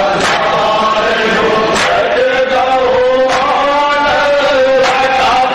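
Male voices chanting a nauha, a Muharram mourning lament, in unison, led at a microphone. A crowd's chest-beating (matam) lands with it in time, one stroke about every second and a half.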